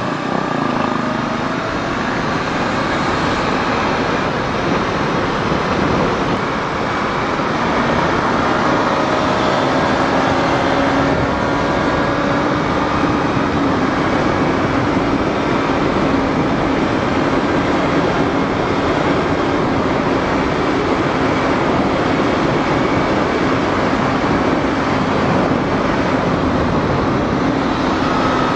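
Sport motorcycle's engine running steadily under way, with a constant rush of wind over the microphone. It gets a little louder about eight seconds in.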